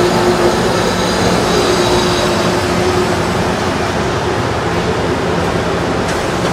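Metro Blue Line light rail train easing to a stop beside the platform: steady motor hum over rolling and rail noise, with the hum fading away about three seconds in.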